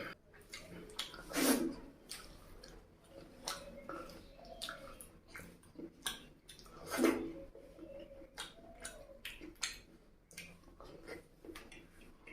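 Close-miked wet chewing and mouth clicks of someone eating curry and rice, with two louder wet bursts about a second and a half in and again about seven seconds in.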